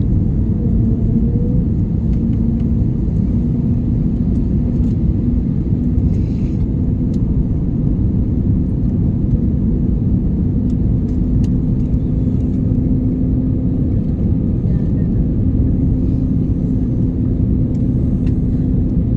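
Steady low rumble of an airliner cabin on the landing approach: engine and airflow noise, with a steady hum running under it.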